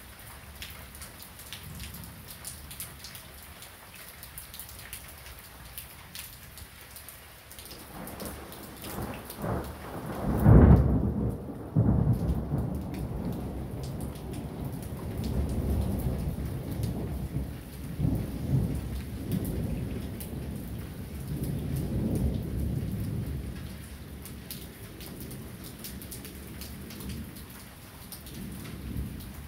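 Steady heavy rain falling, with a low rumble building about eight seconds in and a loud thunderclap a couple of seconds later. The thunder then rolls on in waves of rumbling for more than ten seconds before dying away under the rain.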